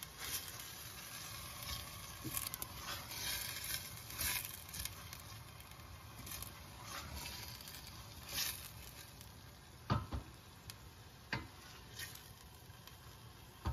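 Onion-garlic paste and ginger frying in oil in a pan: a low, steady sizzle. A utensil stirring and scraping the pan gives short knocks now and then, the clearest around ten seconds in.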